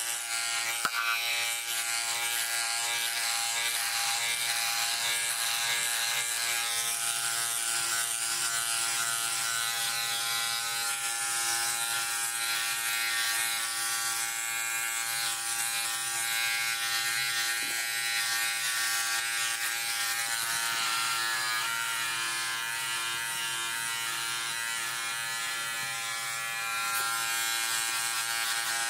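Philips OneBlade hybrid electric trimmer running with a steady buzz as it is drawn over facial stubble, cutting the hair.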